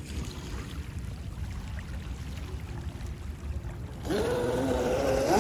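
Low rumble and small waves lapping. About four seconds in, the Traxxas M41 RC catamaran's brushless electric motor comes in with a whine that climbs in pitch as the boat accelerates away, over a hiss of spray.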